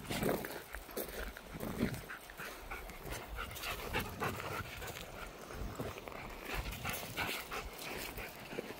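A dog panting, with footsteps crunching on a gravel path.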